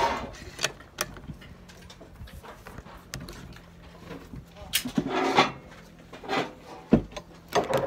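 Bolt-action rifle being loaded, its bolt worked and closed with sharp metallic clicks, then a single rifle shot about seven seconds in, the loudest sound.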